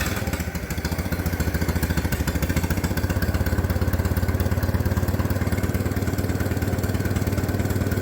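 Minneapolis-Moline BF tractor engine running steadily just after starting, on choke and with no muffler fitted. Its exhaust beat is even and open.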